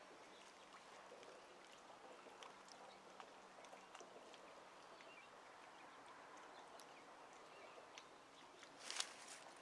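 Near silence: faint outdoor ambience at the creek with a few scattered faint ticks, and a brief rustle near the end.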